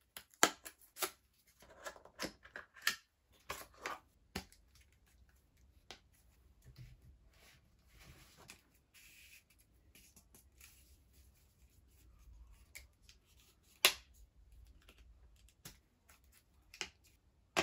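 A MOFT Snap phone stand and wallet being unpacked by hand from its cardboard box and plastic tray: quick rustling, scraping and clicks, busiest in the first few seconds, then softer handling with a couple of sharp clicks later on.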